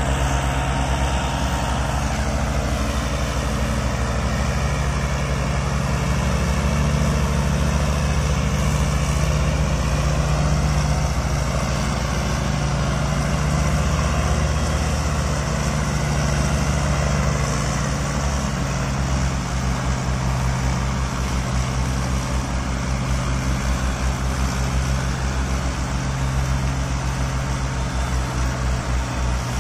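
Diesel farm tractor engines running steadily under heavy load, a low even chugging as the hitched tractors strain to pull an overloaded sugarcane trolley.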